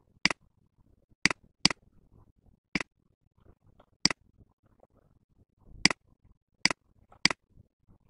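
Computer mouse clicking: about eight sharp, single clicks at uneven intervals.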